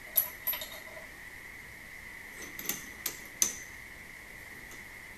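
Light metallic clicks and clinks of a drill bit being changed in a Delta drill press chuck: two clicks near the start and three more around the middle, over a faint steady high whine.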